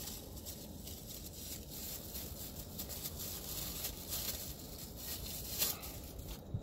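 Faint handling noise of camera accessories and their packaging: a few soft rustles and light clicks, the clearest about four and five and a half seconds in, over a steady low hum.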